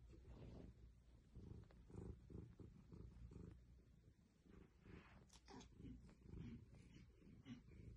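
Faint cat purring, a low pulsing rumble, with a few brief soft higher sounds about five seconds in.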